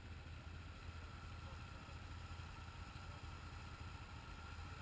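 Off-road vehicle engine idling steadily: a constant low hum with a faint thin whine above it.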